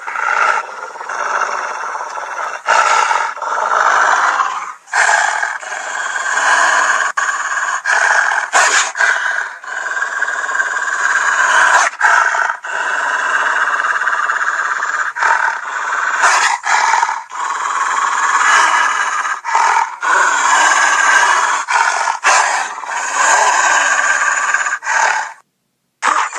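Hyenas growling in a near-continuous run of rough, overlapping calls broken by short pauses, cutting off just before the end.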